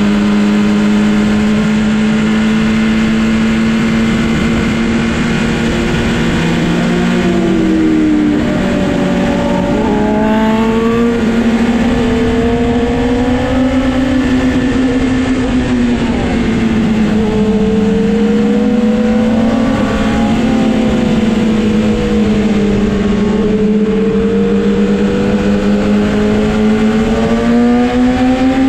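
Sport motorcycle engine running hard at a steady road speed, its pitch easing down and climbing back several times as the throttle is rolled off and on, and rising again near the end, over a steady rush of wind and road noise.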